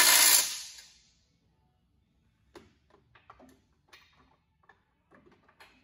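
A 3/8-inch-drive impact wrench with an 18 mm socket runs loudly for about a second, tightening bumper nuts, then winds down. A few faint clicks and knocks follow.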